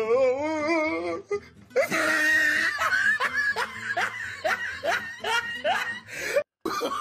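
Laughter on a looped comic soundtrack: a wavering laugh, then a run of short rhythmic laughs about three a second, over music. The sound cuts out briefly near the end.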